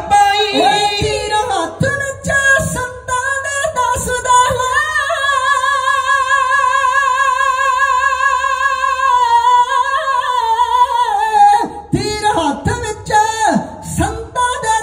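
A man singing a Punjabi Sikh song unaccompanied through microphones and a PA, holding one long high note with a wavering pitch for about six seconds in the middle, with shorter sung phrases before and after it.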